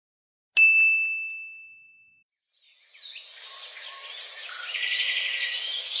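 A single bright bell ding about half a second in, ringing out and fading over about a second and a half. Then, from about three seconds in, birds chirping over a soft outdoor hiss, growing louder.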